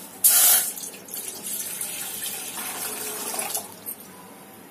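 Water poured into an empty stainless steel pot: a loud splash as it first hits the metal bottom, then steady pouring that stops a little before the end.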